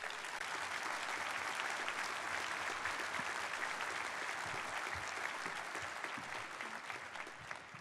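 Audience applauding: many people clapping steadily at the end of a speech, fading a little near the end.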